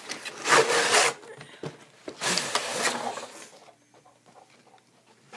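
Cardboard rubbing and scraping as the inner tray of a toy blaster box is slid out of its printed sleeve, in two rough bursts, the second about two seconds in and longer.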